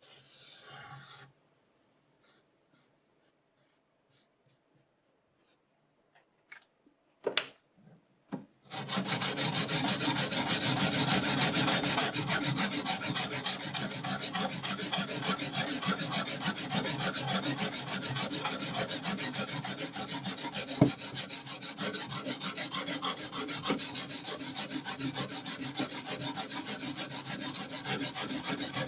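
A few light clicks and knocks, then from about nine seconds in a sharpening stone rasps continuously along a knife blade's edge in quick back-and-forth strokes.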